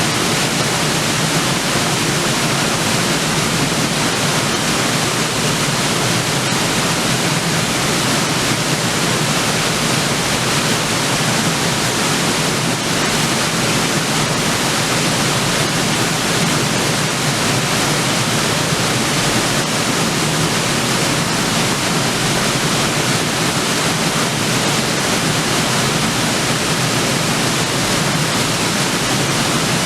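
River waterfall: water pouring over a rock drop and splashing into the pool below, a steady, loud, even rush with no change.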